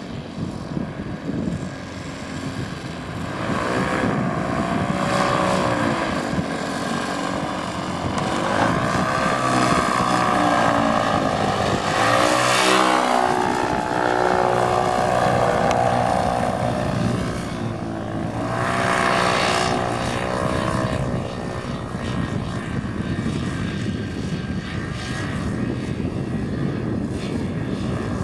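Paramotor's two-stroke engine and propeller running as the powered paraglider flies low past, growing louder to a close pass about halfway through where the pitch drops, then swelling again a few seconds later.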